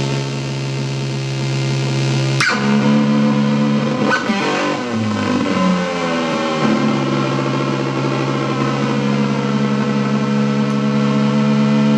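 Guitar played through the Barahunda fuzz/noise pedal, giving long sustained fuzz notes. A new note is struck about two and a half seconds in, the pitch slides and warbles for a couple of seconds in the middle, then a steady note is held to the end.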